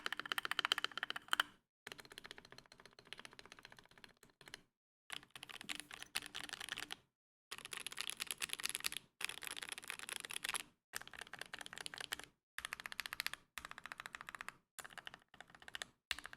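Typing on a GMMK Pro mechanical keyboard with Momoka Frog switches and Akko Midnight keycaps: rapid key clacks in short bursts of a second or two, each cut off abruptly by a moment of dead silence.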